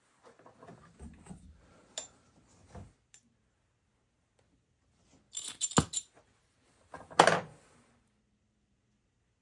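Small metal tools and parts being handled at a workbench: rustling with light clinks, a quick run of sharp metallic clicks, and a louder brief clatter about seven seconds in.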